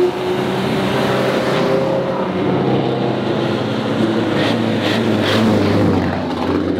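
Engines of tuned performance cars running at low speed as a line of them passes close by, several engine notes overlapping steadily.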